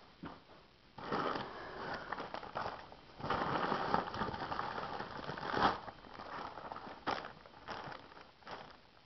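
Clear plastic packaging crinkling and rustling as hands handle it, in two stretches, with a few sharp light ticks near the end.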